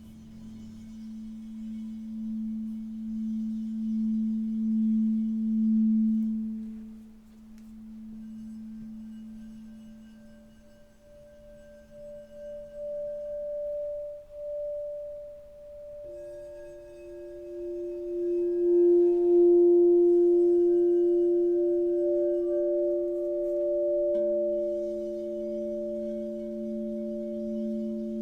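Singing bowls ringing in long sustained tones at several pitches. A low tone swells and fades out, a higher one enters partway through and a middle one joins about halfway, so they sound together. The low tone comes back near the end.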